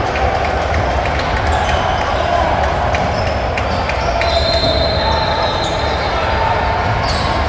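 A basketball dribbled on a hardwood gym floor over a steady din of voices echoing in a large hall, with a brief high squeak a little past the middle.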